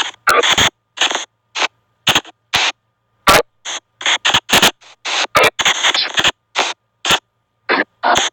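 SP White Noise spirit box app playing through a phone speaker: rapid, choppy bursts of static-like white noise, about two to three a second, each cut off sharply into silence before the next.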